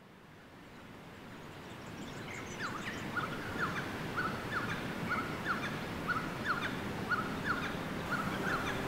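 Outdoor ambience fading up over a steady rush of a river. About two seconds in, a bird begins calling in a repeated series of short, sharp paired notes, about two a second.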